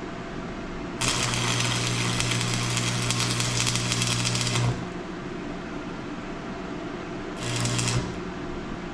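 Arc welder welding a nut and washer onto a broken stud to pull it out: a crackling buzz with a steady hum, about three and a half seconds long starting about a second in, then a second short burst near the end.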